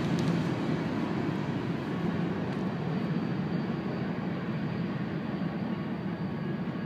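Freight cars rolling along the rails as the end of the train passes, a steady rumble that slowly fades as the train moves away.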